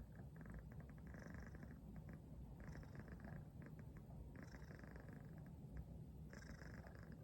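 Domestic cat purring, a faint low rumble that swells in rhythmic stretches about every two seconds with each breath. It sounds much like snoring but is purring.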